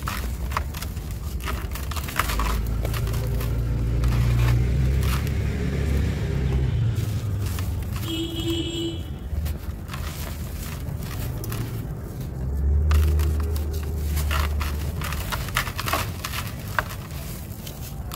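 Dry sand-cement lumps crumbling and crackling between the hands, gritty powder pouring and pattering into a plastic tub. A low rumble swells twice behind it, and a short pitched sound comes about halfway through.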